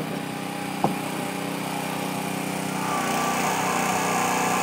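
A small engine running steadily, a little louder from about three seconds in, with one sharp click about a second in.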